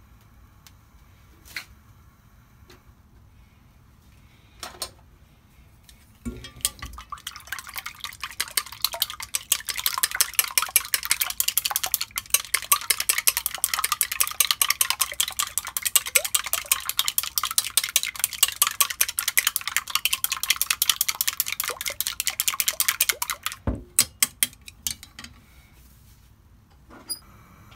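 Eggs being beaten with long wooden cooking chopsticks in a small stainless steel pot: a fast, steady clicking of the chopsticks against the metal that starts about six seconds in and stops near twenty-four seconds. A few separate taps come before it, and a few after as the chopsticks are set down on the pot.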